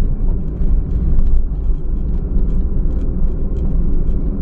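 Low, steady rumble of a 2000 Honda Insight driving along a winding road, heard from inside the cabin, with scattered light ticks and rattles.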